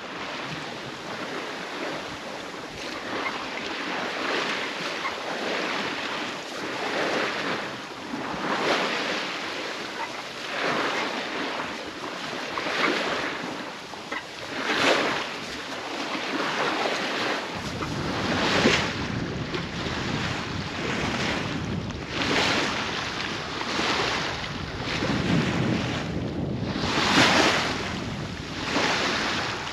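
Water rushing and splashing along the hull of a sailboat under way, surging every two seconds or so as the bow meets the swell. Wind buffets the microphone, with a low rumble from about halfway through.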